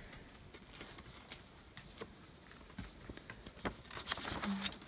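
Faint rustling and a few light clicks of packaging and small items being handled while a parcel is unpacked, getting busier near the end.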